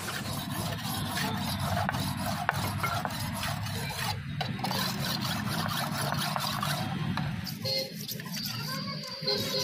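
Steel knife blade being sharpened by hand on a whetstone: repeated gritty scraping strokes of steel against stone.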